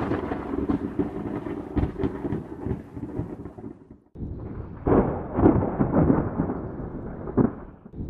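Thunder rumbling with crackles, fading and cutting out briefly about four seconds in, then a second peal of thunder with sharp cracks that rumbles on to the end.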